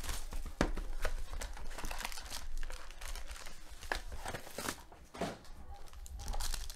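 Foil trading-card pack wrappers crinkling and tearing as packs are ripped open and handled, with many irregular sharp crackles.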